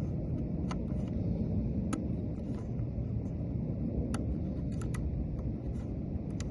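Sparse light metallic clicks of a Lishi pick working the wafers of a Ford lock, over a steady low rumble.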